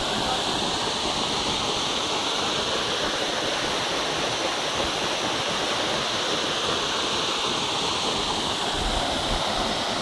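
Waterfall's falling water, a steady, unbroken rush.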